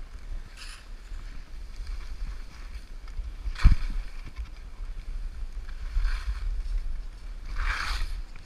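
Skis swishing and scraping over snow through a series of turns, the longest scrape near the end, over a steady low rumble of wind on the microphone. A single sharp knock about three and a half seconds in.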